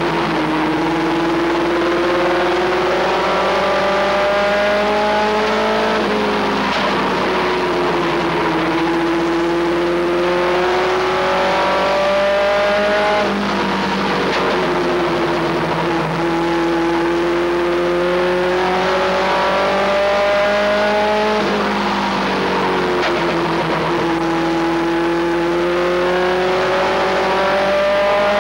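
Race truck engine heard from inside the cab, running at racing speed. Its pitch climbs steadily under full throttle down each straight, then drops sharply as the driver lifts for the turn, about every seven seconds, lap after lap.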